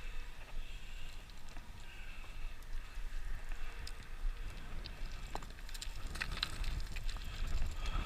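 Wind rumbling on the microphone, with scattered clicks and crackles of loose rock and gravel underfoot during a scramble up rocky ledges. The clicks come thickest about six to seven and a half seconds in.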